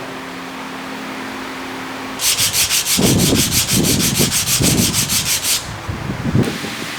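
A hand tool rubbing quickly back and forth over wood, sanding-like, about eight strokes a second for roughly three seconds, with heavier scraping pushes in the middle.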